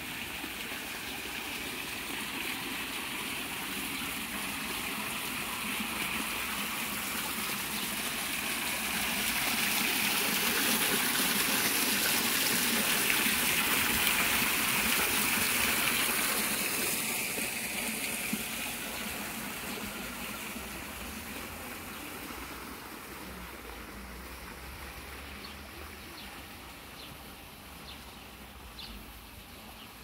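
Water spilling and trickling down the stone ledges of a small artificial rock waterfall into its basin. It is a steady splashing rush that swells in the middle, then fades gradually over the last third.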